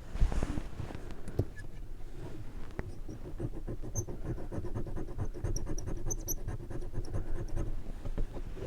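A metal brooch being scratched rapidly back and forth against a surface to prepare it for a sterling silver acid test, a fast, even scratching that starts about three seconds in, after a few handling clicks.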